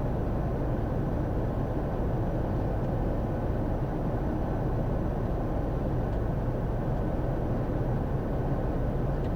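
Steady rush of airflow and hum of a Bombardier Challenger 350's engines, heard inside the flight deck on final approach with the landing gear down. The level holds even throughout.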